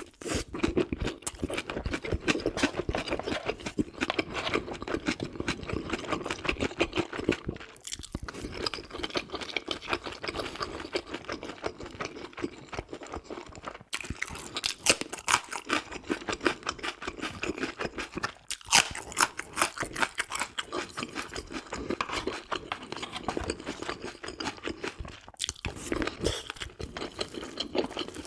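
Close-miked chewing and eating sounds: a dense run of crunching, clicky mouth noises, broken by a few short pauses.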